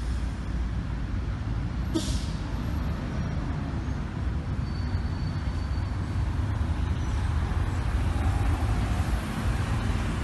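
Road traffic at a street intersection: a steady low rumble of car engines and tyres, with a short sharp hiss about two seconds in. The traffic grows a little louder near the end as a car crosses close by.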